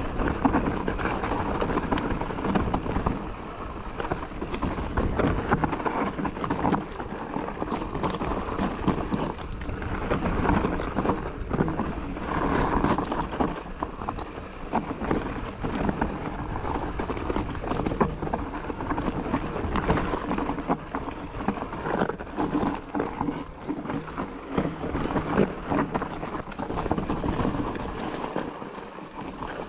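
Mountain bike descending a rough enduro singletrack: a continuous rumble of tyres rolling over dirt and stone, with constant rattling clicks and knocks from the bike.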